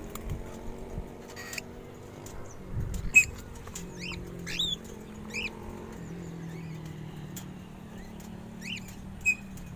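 Short, sharp bird chirps, about six of them scattered from about three seconds in, each a quick glide in pitch, over a steady low hum.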